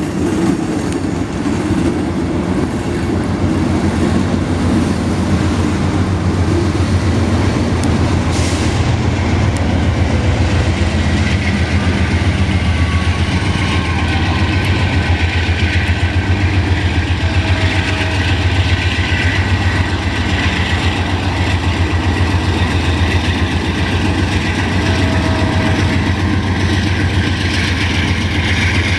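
Union Pacific freight train rolling past, a loud, steady rumble of wheels on rail over a continuous deep drone.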